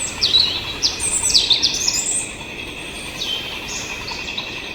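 Small birds chirping: a run of quick, falling chirps, busiest in the first two seconds and thinning after, over a steady high-pitched drone.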